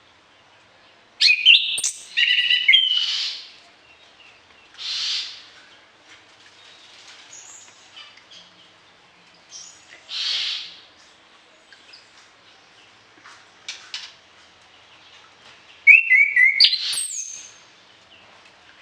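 Orange-headed thrush singing in separate bursts of varied, quick whistled and chattering phrases. The loudest bursts come about a second in and again near the end, with softer hissing notes in between.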